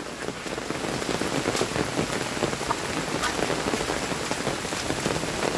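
Heavy rain falling steadily, with scattered sharper drops ticking through the hiss.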